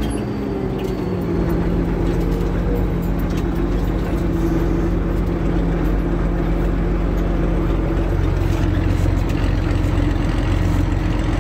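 Farm tractor engine running steadily under load as it pulls a plough into the soil. A brief dip in level and pitch comes just after the start, then the engine settles into an even, steady tone.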